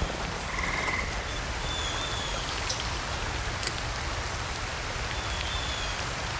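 Steady rain falling on pond water and wet grass. Frogs call a few times over it: a short pulsed croak about a second in, then brief high chirps now and then.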